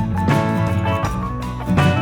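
Background music led by guitar over a bass line, with a steady beat.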